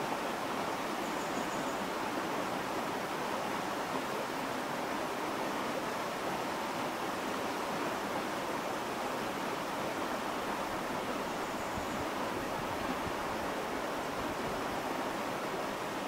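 Clear, shallow mountain stream running over and around rocks: a steady, even rush of flowing water.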